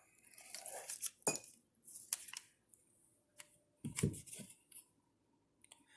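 Faint, scattered clinks and taps of hard objects being handled, with a slightly louder double knock about four seconds in.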